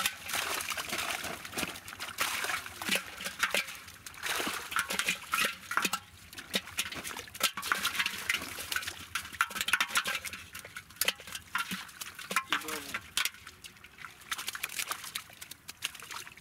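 Live prawns and small fish flapping and flicking in shallow water inside a hauled-in cast net: a dense, irregular patter of small splashes and sharp water flicks.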